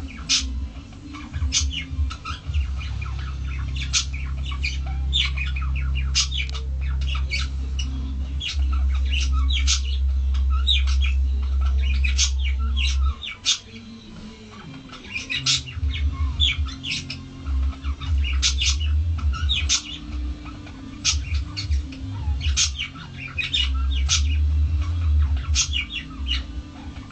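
A small animal squeaking: short, high squeaks repeated irregularly, a few a second, over a loud low rumble that drops out about halfway through and then comes and goes.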